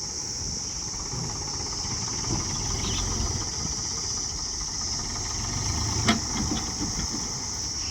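Engine running at a steady idle with a low rumble and a steady high-pitched hiss above it. There is a single sharp click about six seconds in.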